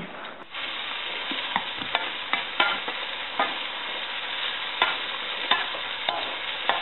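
Metal potato masher pressing boiled potatoes in a stainless steel saucepan, knocking against the pan bottom at uneven intervals, about one every half second to second, over a steady hiss that starts about half a second in.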